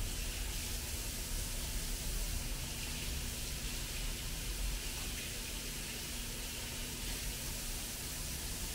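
Kitchen tap running into a sink while dishes are washed by hand: a steady rush of water with a faint constant hum underneath.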